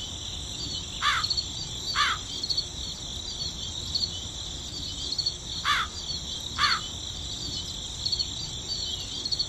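Countryside ambience of crickets chirping steadily. Twice over, a short call sounds twice about a second apart, the pairs about four and a half seconds apart.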